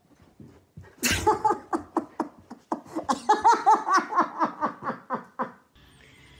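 Laughter: a fast run of short ha-ha bursts that starts abruptly about a second in and stops about five and a half seconds in.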